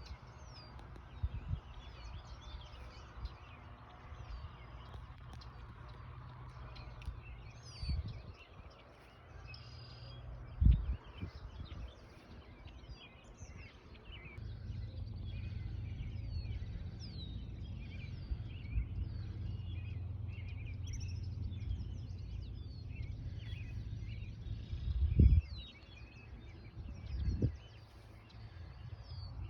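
Several birds chirping and singing over a low rumble, which grows stronger about halfway through. A few sharp, loud thumps stand out, the loudest about a third of the way in and again near the end.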